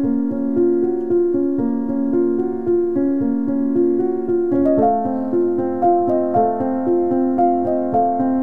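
Background piano music: a slow melody of held notes over chords, moving to a new chord about halfway through.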